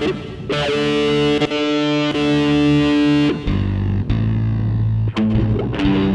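Instrumental music with held, distorted chords. About three and a half seconds in, it drops to a lower, bass-heavy chord, with a few sharp hits.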